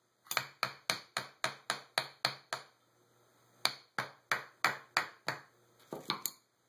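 Rapid, evenly spaced sharp taps on a Holley 600 carburetor, about four a second, in two runs with a short pause between and a couple more near the end, as a stuck part is knocked loose during disassembly.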